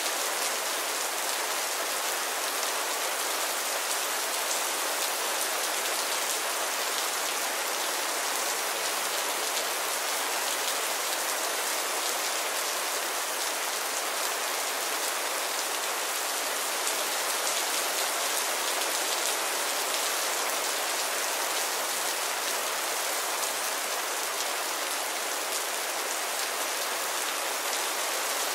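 Rain falling steadily: an even hiss of many drops that neither swells nor breaks.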